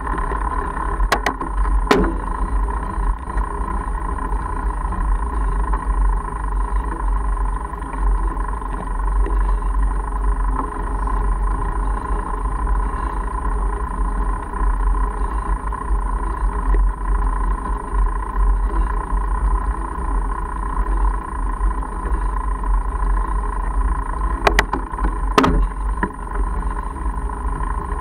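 Mongoose Argus fat-tyre bike riding along a gravel road, heard from a bike-mounted camera: steady wind rumble on the microphone and tyre noise, with a few sharp knocks as the bike jolts, about two seconds in and again near the end.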